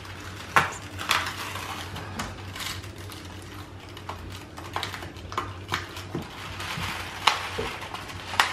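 Fingers handling a cardboard Cadbury Dairy Milk chocolate advent calendar, with scattered small clicks and crackles as one of its perforated doors is picked open.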